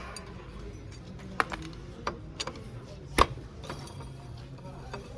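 Tools and engine parts being handled during motorcycle repair work: a few sharp knocks and clinks, the loudest about three seconds in.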